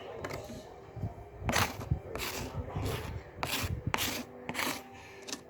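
A run of about six short rubbing or scraping strokes, each under half a second, in the middle of the stretch.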